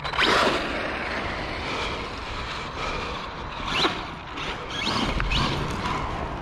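Arrma Big Rock RC monster truck driving over dirt, its brushless motor whining up and down in a few short bursts of throttle over a steady rush of tyre and track noise.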